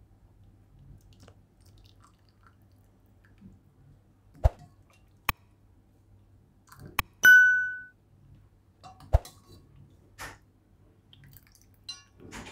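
Steel ladle knocking against the bowls as dal is ladled into a glass bowl: several sharp clinks, one of them, about seven seconds in, ringing on for about half a second.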